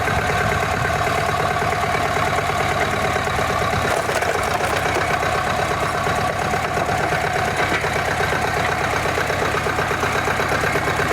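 Log splitter's engine running steadily at idle, with a fast, even firing beat.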